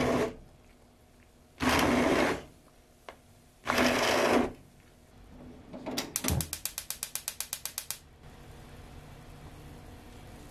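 Immersion blender puréeing a saucepan of spinach and milk soup in three short pulses, each under a second. These are followed by about two seconds of rapid clicking, roughly ten clicks a second.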